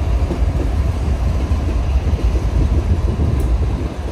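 CSX diesel-electric freight locomotives passing close by: a loud, steady low rumble of engines and wheels on the rails, easing slightly near the end as the last locomotive goes past and the freight cars follow.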